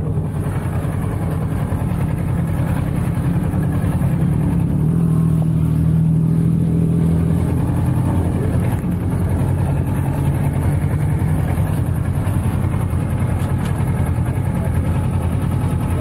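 Motorcycle engine running steadily at low revs as the bike rolls slowly, a little louder around the middle.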